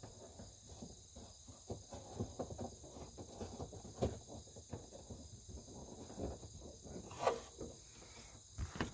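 Scattered small clicks and taps of hands working the turn signal bulb socket in a car's light housing, with a few louder knocks. Steady high insect chirring goes on underneath.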